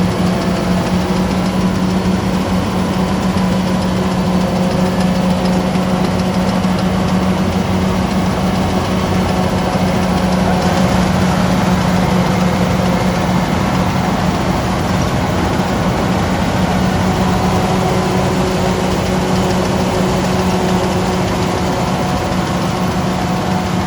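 Kubota DC-105X rice combine harvester's diesel engine running at a steady, constant pitch with the machine's mechanical clatter, loud and unchanging.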